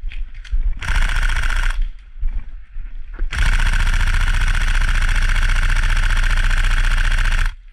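Electric airsoft rifle firing on full auto, its motor and gearbox cycling fast. It fires a short burst of about a second near the start, then a long burst of about four seconds that stops just before the end.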